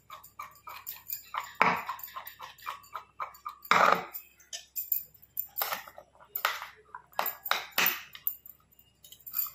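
A spoon stirring a curd mixture in a bowl, clicking and clinking against the bowl about three or four times a second, with a few louder knocks, the loudest about four seconds in.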